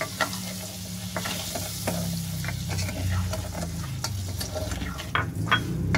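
Wooden spatula stirring sugar into melted butter in an aluminium saucepan, scraping and knocking irregularly against the pan, with the butter sizzling underneath.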